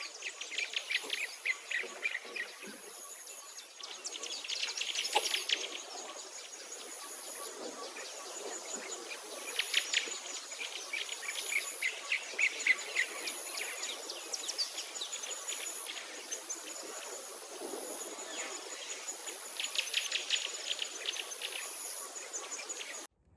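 Outdoor bird and insect chorus: birds chirping and trilling in quick bursts, over a faint high insect note that pulses on and off steadily.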